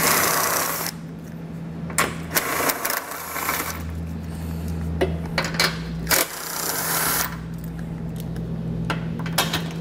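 Cordless impact wrench, fitted with an 18 mm deep-well socket on an extension, spinning off the bumper reinforcement beam's retaining nuts in a series of short bursts of rapid hammering.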